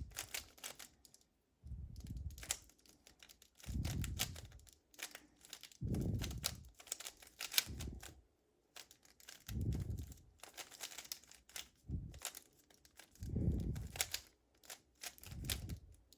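A 3x3 speedcube being turned, its layers clicking and clacking in quick irregular runs of short sharp clicks, the awkward turning of a solve done with only three fingers. A soft low sound comes every two seconds or so alongside.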